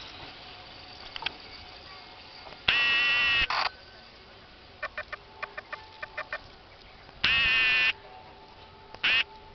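An EF63 electric locomotive's whistle sounds two short, loud blasts about four seconds apart, then a brief third toot near the end. Faint paired clicks come in between.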